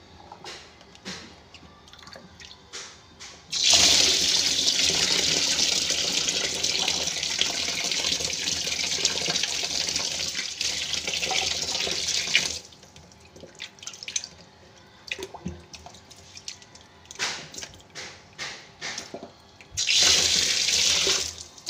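Kitchen tap running into a plastic bowl of water in a stainless steel sink as shallots and spices are rinsed by hand, with small splashes of hands rubbing them in the water. The tap runs steadily for about nine seconds starting about four seconds in, then again briefly near the end.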